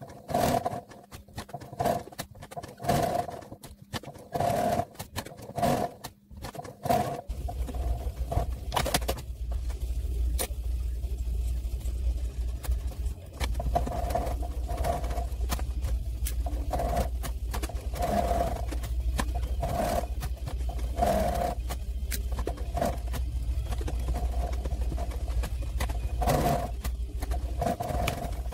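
Sewing machine work and fabric handling, sped up fourfold: a garbled run of quick clicks and short whirring bursts, with a steady low hum setting in about seven seconds in.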